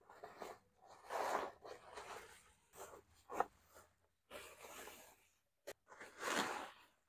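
Bubble wrap rustling and crinkling as it is pulled open by hand, in several uneven bursts with a couple of short sharp crackles.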